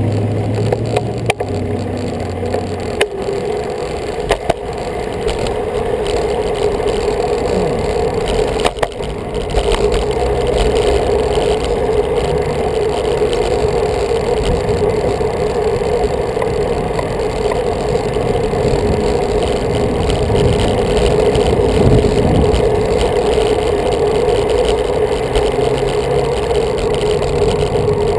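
Steady wind and road noise on a bicycle-mounted camera riding in traffic, with car engines running close by near the start. There are a few sharp clicks and knocks in the first ten seconds.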